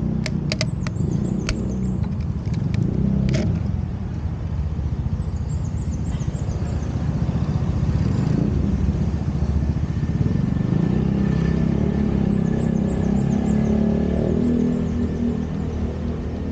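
Steady low rumble with a rapid flutter, typical of wind buffeting a small action camera's microphone, with a few sharp clicks in the first few seconds.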